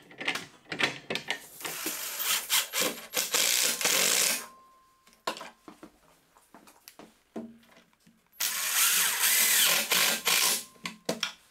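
Power drill driving pocket-hole screws into a plywood cabinet top: two runs of about one and a half to two seconds each, with clicks and knocks of handling between them.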